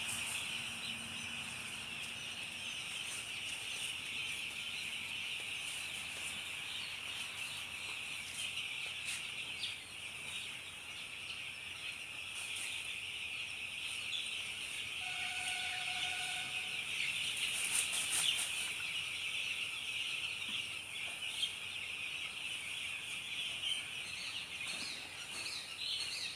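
A large flock of poultry-farm chickens calling together in a continuous, dense chirping chatter. A brief held tone sounds about fifteen seconds in, and a short burst of sharp clattering about eighteen seconds in is the loudest moment.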